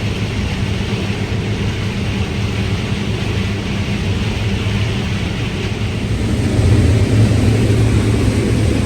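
New Holland combine harvesting corn, heard from inside the cab: a steady low engine and machine drone with a hiss over it, growing a little louder about two-thirds of the way through.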